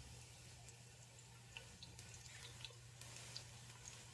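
Faint, sparse crackling of chopped garlic frying in hot oil and ghee in a pot, over a low steady hum.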